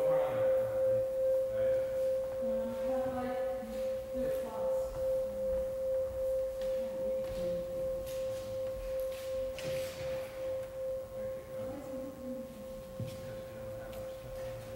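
A struck metal instrument ringing on one steady pure tone, pulsing about twice a second as it slowly fades.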